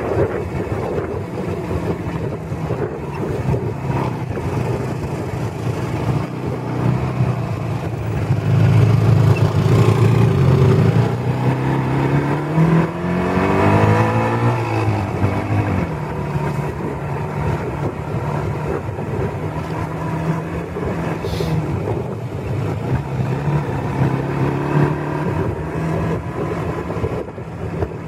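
Motorcycle engine running under way with road and wind noise; about halfway through the engine note climbs steadily in pitch as it accelerates, then settles back to a steady run.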